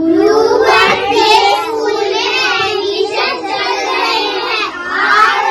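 A child singing in a high voice, holding long wavering notes with only brief breaks.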